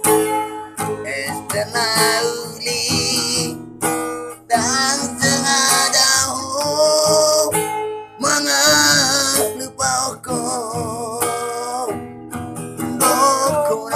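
A song played on strummed acoustic guitar, with a sung voice holding long notes with vibrato.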